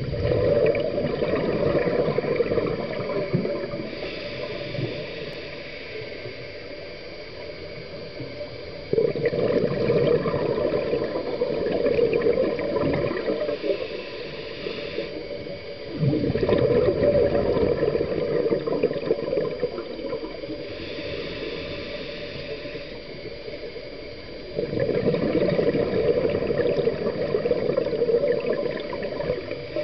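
Scuba diver breathing through a regulator underwater: a hiss on each inhale, then a loud gurgling rush of exhaled bubbles. Four exhalations, about seven to eight seconds apart.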